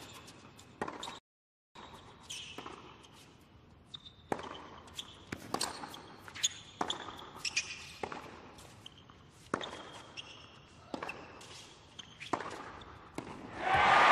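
Tennis rally on a hard court: a run of sharp racket hits on the ball and ball bounces, with short shoe squeaks between them. Crowd applause breaks out loudly near the end as the point finishes.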